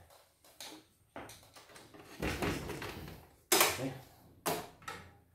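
Several knocks and a stretch of clatter from objects and a machine being handled on a wooden workbench, with the loudest knock about three and a half seconds in.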